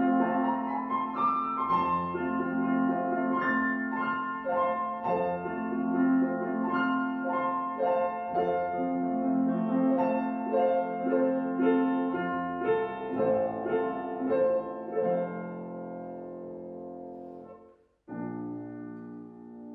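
Background piano music, a gentle played melody. It fades away toward the end, cuts out for a moment, then a quieter passage begins.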